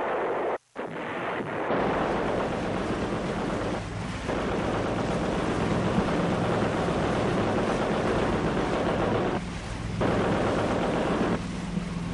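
Boat engine running steadily under a rush of water and wind noise, as a river patrol boat moves at speed. The sound drops out briefly near the start and dips a few times.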